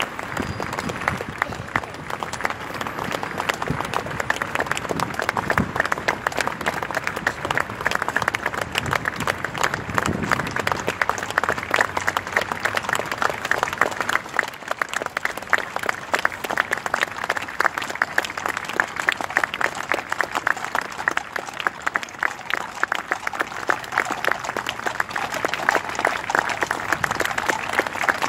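A large crowd applauding steadily, many hands clapping at once without a break.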